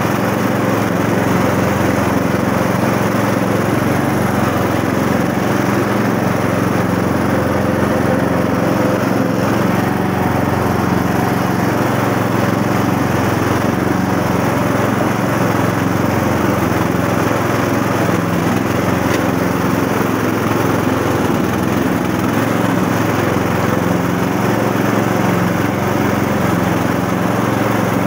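MTF 1638H ride-on lawn tractor's engine running steadily under load while it mows grass, heard close up from the driver's seat.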